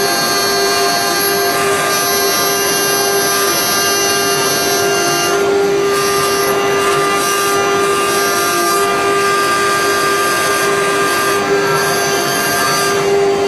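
Spindle of a 3030 CNC engraving router running steadily while its engraving bit cuts into a metal medallion: a continuous whine made of several held tones over a hiss of cutting.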